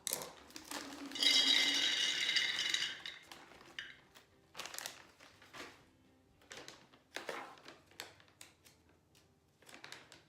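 Pantry items being handled: a loud rattle for about two seconds, like dry goods shaken in their packaging, then a string of light knocks and taps as things are moved and set down.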